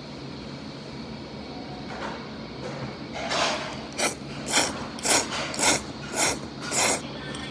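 Udon noodles being slurped in a run of about seven quick, noisy pulls, roughly two a second, starting about three seconds in, over a steady low restaurant hum.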